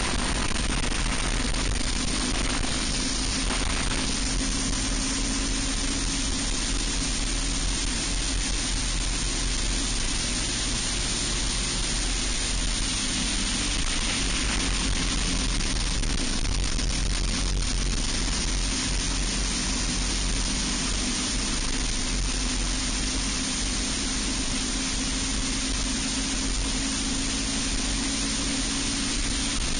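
Racing kart's Briggs & Stratton Animal single-cylinder four-stroke engine running hard at speed, under heavy wind rush over the onboard microphone. The engine note drops around the middle as the kart slows for a corner, then climbs again.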